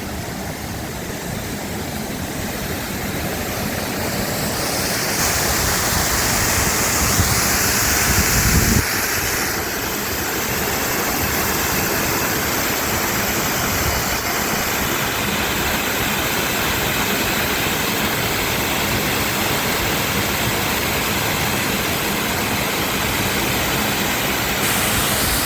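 Waterfall: a steady rush of falling water that grows louder over the first few seconds.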